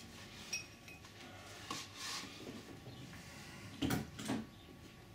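Light clinks and knocks from handling a hollow 3D-printed ABS part, a paint brush and a glass jar on a bench. There is a short ringing clink about half a second in and two sharper knocks close together about four seconds in.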